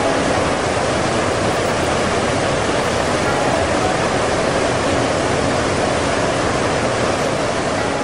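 Steady roar of a large waterfall, an even rush of falling water with no break.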